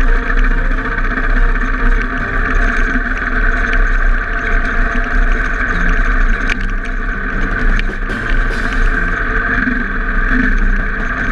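Enduro motorcycle engine running steadily under load on a gravel climb, with no breaks or gear changes standing out.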